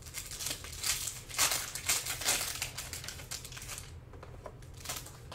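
Foil wrapper of a Panini Prizm basketball card pack crinkling as it is torn open by hand: a run of quick crackles, loudest in the middle, with one last crinkle near the end.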